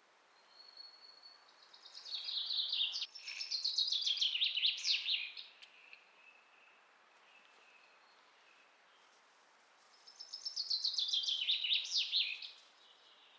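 A songbird singing two long, rapid trilled songs with quick down-sweeping notes, the first starting about two seconds in and the second about ten seconds in, over a faint steady outdoor hiss.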